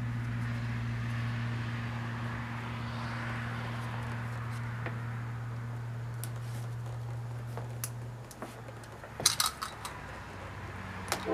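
A steady low hum that fades out about eight seconds in, then a few light metallic clinks from handling something small and metal.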